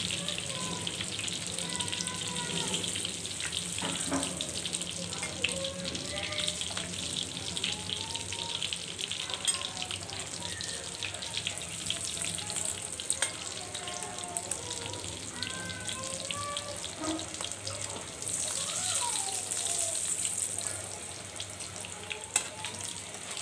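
Egg-coated beef kababs shallow-frying in oil in a pan: steady sizzling and crackling, swelling for a couple of seconds near the end. A few sharp clinks of a metal spatula against the pan as the fried kababs are lifted out.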